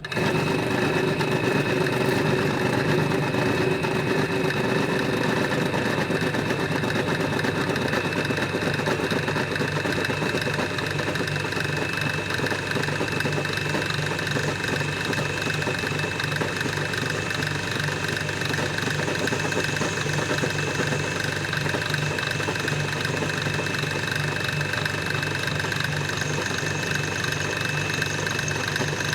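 Pillar drill running steadily: a constant motor hum with a steady high whine over it.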